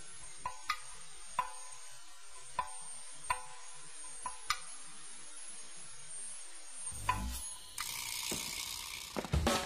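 Faint steady hiss with a few sharp light clicks at uneven intervals. About seven seconds in comes a low thump, followed by a louder rushing noise near the end.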